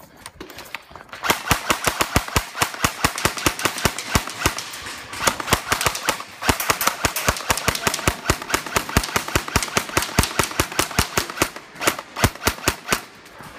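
Airsoft guns firing on full auto in rapid strings of sharp cracks, about ten shots a second, with short pauses between bursts.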